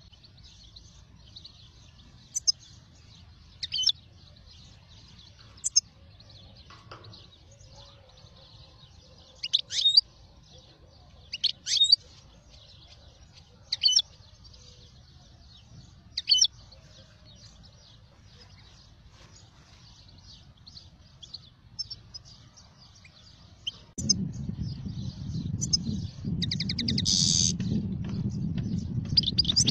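Birds chirping: short, sharp high calls every couple of seconds, then a run of quicker, fainter chirps. Late on a low steady rumble sets in, and a louder trilling call comes near the end.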